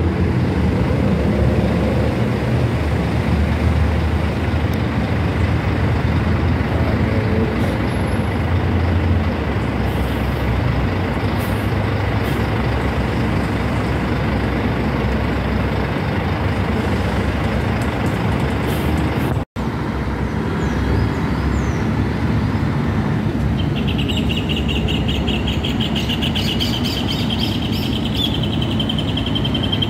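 Intercity coach buses running and pulling out of a bus station gate, a steady engine rumble over traffic noise. The sound cuts out for an instant about two-thirds of the way in, and a little later a high, rapidly pulsing chirp joins in.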